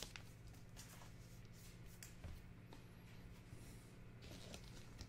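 Near silence: a faint steady room hum, with a few soft clicks and rustles from trading cards being handled.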